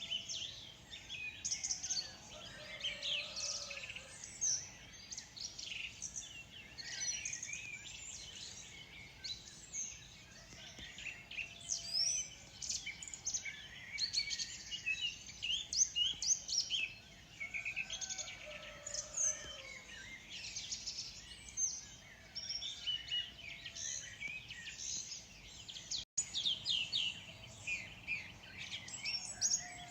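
Morning chorus of many small birds chirping and singing over one another, with a momentary cut in the sound about 26 seconds in.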